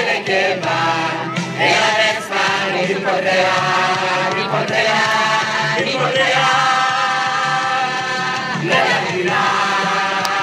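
A group singing a chant-like chorus together over an amplified backing track with a repeating bass line, holding one long note for a few seconds past the middle.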